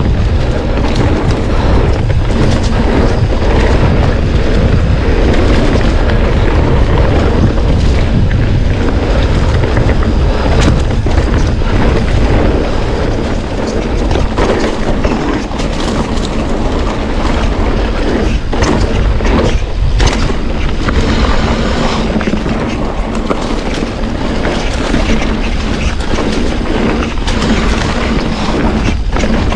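Vehicle in motion, with heavy wind buffeting rumbling on the action camera's microphone.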